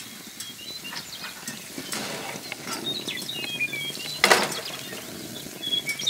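Small birds chirping again and again, with a spatula scraping and clinking in a frying pan; the loudest sound is a short scrape about four seconds in.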